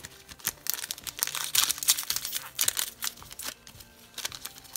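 Plastic hockey card pack wrapper being crinkled and torn open by gloved hands, a tough, hard-to-open wrapper. It makes a dense run of sharp crackles for about three seconds, thinning out to a few crinkles near the end.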